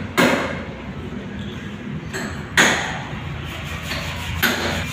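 Sharp metallic knocks, four spread-out hits with a short ring after each, the loudest near the middle, over a steady low hum.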